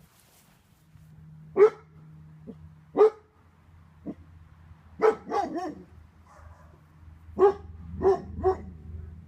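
A dog barking in short, separate barks: two single barks, then a quick run of three, then three more, over a faint steady low hum.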